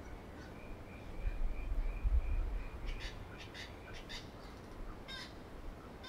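Pied currawong giving several short, harsh calls in the second half. Before them a high note repeats evenly about three times a second, and a low rumble swells about a second in.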